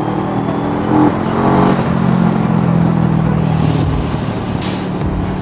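Bristol Bobber 650 motorcycle engine running steadily while riding in traffic, with wind rushing over the microphone from about three seconds in.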